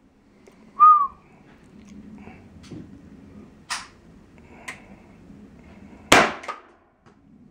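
Shots from an MR35 Punch rubber-ball launcher firing black-powder charges in a five-shot string. There are two loud reports, about a second in and about six seconds in, with two lighter sharp cracks between them.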